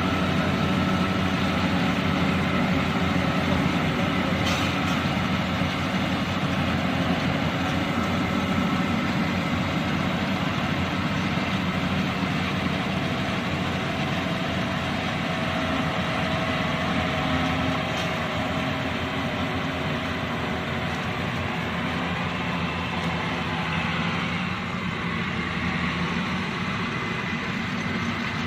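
Yanmar 82V combine harvester running steadily with a continuous engine hum, as it works through rice.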